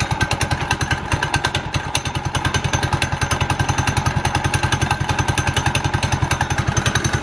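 Small air-cooled gas engine in a kids' Power Wheels ride-on car, idling steadily with an even, fast putter of about ten pulses a second.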